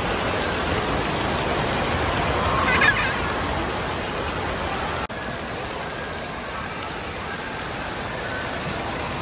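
Steady hiss and patter of water spraying and splashing from splash-pad fountains and a spray wheel. A short high-pitched voice cries out about three seconds in, and the sound drops out for an instant about five seconds in before the water noise resumes a little quieter.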